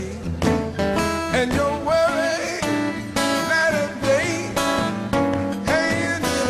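Music: a band playing a song led by guitar, with a melody line that bends and slides in pitch.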